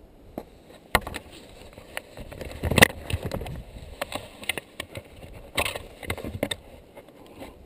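Handling noise close to a helmet-mounted camera: scattered knocks, clicks and rubbing as riding goggles are handled, loudest about three seconds in and again just past halfway.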